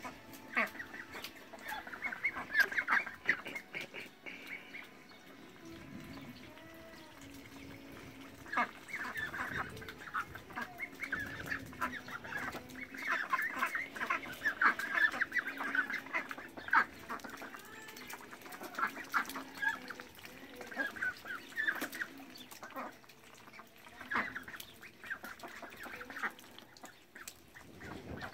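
A flock of domestic ducks quacking and chattering in bouts of rapid short calls, with quieter gaps between the bouts. A faint steady low hum runs underneath.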